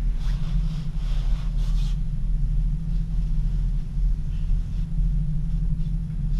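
Steady low rumble of an aerial cable car gondola running along its cable, heard from inside the cabin, with a brief hiss in the first two seconds.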